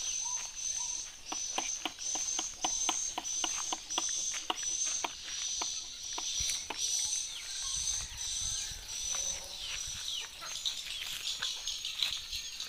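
Pump-up pressure hand sprayer giving many short squirts of water, about three a second, soaking a coconut-fibre air layer. A high pulsing chirring sound runs behind it and stops about ten seconds in.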